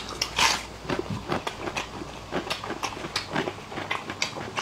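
Chewing braised beef rib meat, with wet smacks and clicks of the mouth several times a second and a brief louder breathy sound about half a second in.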